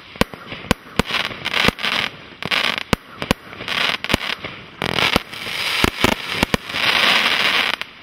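Celtic Fireworks 'The Tardis' 126-shot single-ignition firework cake in its finale, firing rapid shots with bangs and crackling star bursts. A long spell of dense crackling comes near the end, then the firing stops.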